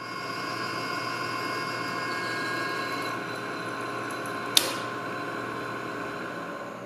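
Precision Matthews PM-949TV milling machine running with a steady whine from its spindle drive while holes are machined in a steel workpiece. One sharp click about four and a half seconds in.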